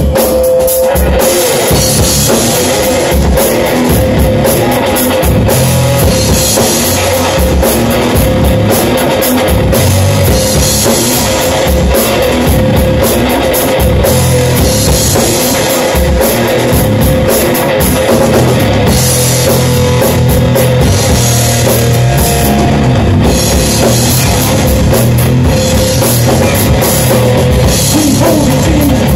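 Live rock band playing loud: electric guitar over a drum kit, without a break.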